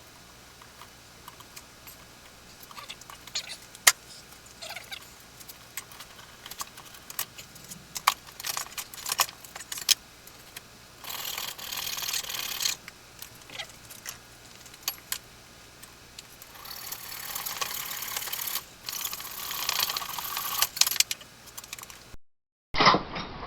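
Small metal hardware clinking and rattling in scattered clicks, as when picking through loose bolts, nuts and washers, with a longer spell of rattling about halfway through and another lasting several seconds near the end.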